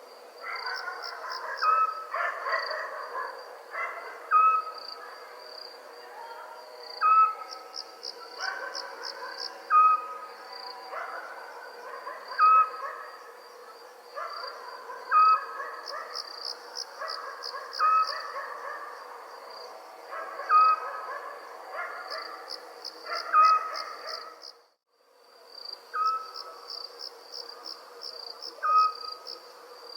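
Night ambience after rain: crickets chirring steadily, with bursts of pulsed insect trills. A short animal call repeats every two to three seconds. Fainter calls that may be a distant dog come and go, and the sound cuts out for a moment near the end.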